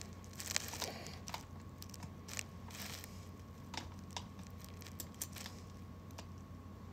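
Faint, irregular clicks and taps from a computer keyboard and mouse being used, spaced out rather than continuous typing, over a steady faint electrical hum.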